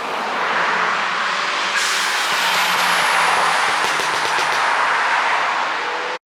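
MINI Cooper JCW with an N14 turbocharged engine on the move: a loud, even rush of road and wind noise with a faint engine hum beneath it. It cuts off abruptly just before the end.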